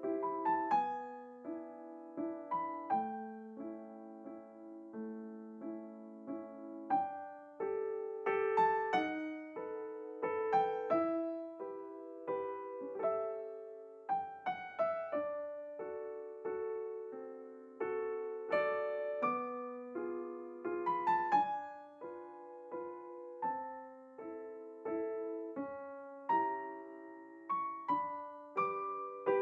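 Solo piano music at a steady pace, with notes and chords struck one after another and left ringing.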